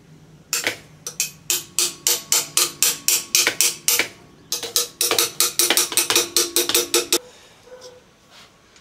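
Rapid hammer blows on the air compressor's cooling fan, driving it back onto the motor shaft: two runs of sharp strikes, about four to five a second, each with a short metallic ring and a brief pause between the runs.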